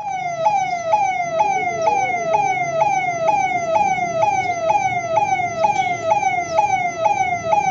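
Police vehicle siren sounding a fast repeating pattern, each note jumping up and sliding down about two and a half times a second, over a steady low background noise.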